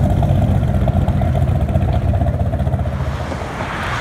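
Dodge Viper GTS's V10 engine pulling away, its low, pulsing exhaust note fading toward the end.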